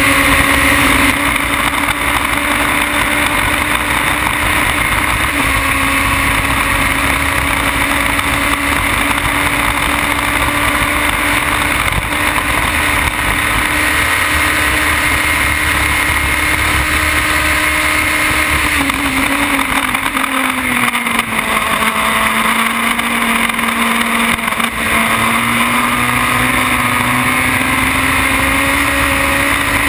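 Onboard sound of a Formula BMW single-seater's engine, a 1.2-litre motorcycle-derived four-cylinder, running at high revs on the straight with heavy wind and road noise. About 19 seconds in the revs fall as the car slows for a corner, then climb steadily again as it accelerates out.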